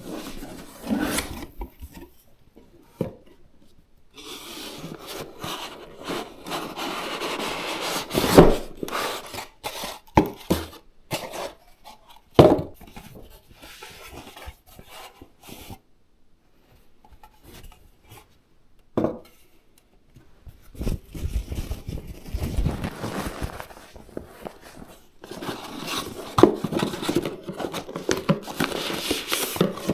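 Hands unpacking and handling a boxed PC power supply: cardboard and plastic packaging scraping, rubbing and rustling, with a few sharp knocks as parts are set down, and crinkling plastic near the end.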